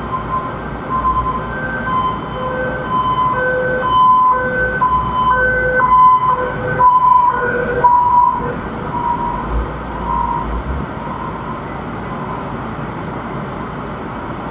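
Emergency-vehicle siren sounding a two-tone hi-lo pattern, high and low notes in turn about every half second. It swells louder toward the middle and fades away about three-quarters of the way through, over steady road noise from the car.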